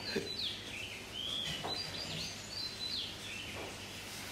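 A small bird chirping, a run of short high calls in the first three seconds, several sliding down in pitch, over a steady low background hum.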